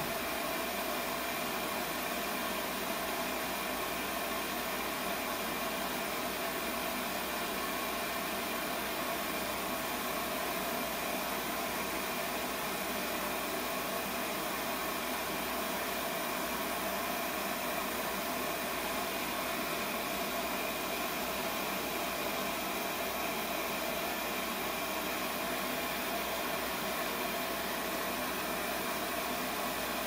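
Lopet propane glass-working burner with a concentrated flame, burning with a steady, unchanging hiss.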